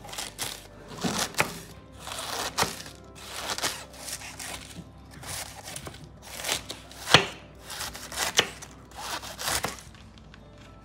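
Kitchen food-preparation sounds: a series of about eight rasping strokes, roughly one a second, several ending in a sharp knock, like food being cut on a board. Soft background music underneath.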